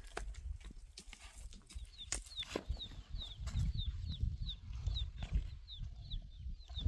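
A bird chirping a long run of short, high, downward notes, about three a second, over low rumbling and a few scattered knocks.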